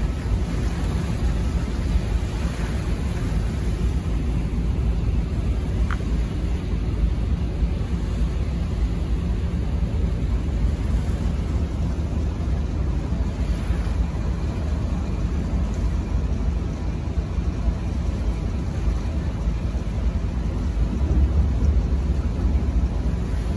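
Steady low rumble of a harbour ferry under way, with wind buffeting the microphone.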